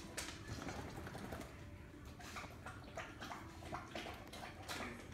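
Faint, irregular clicking and scuffling of dog claws on a hardwood floor as the basset hounds move about.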